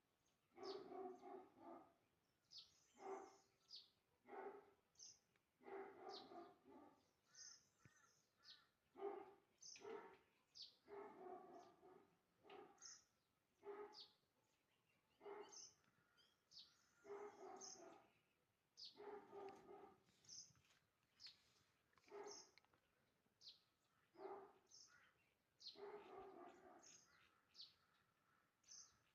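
A dog barking over and over, faintly, about one bark every second or so, with high bird chirps mixed in.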